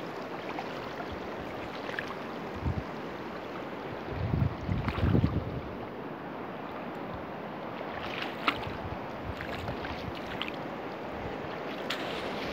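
Steady rush of a river flowing over stones, with wind buffeting the microphone about four to five seconds in and a few faint clicks later on.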